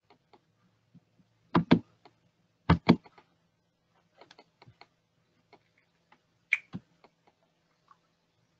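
Computer mouse and keyboard clicks: two loud double clicks in the first three seconds, another sharp click about six and a half seconds in, and faint scattered ticks in between.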